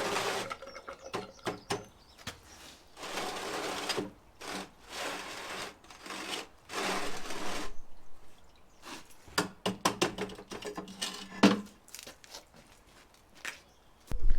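Intermittent rubbing and scraping on a hard surface, in strokes about a second long, with a few sharp knocks in between.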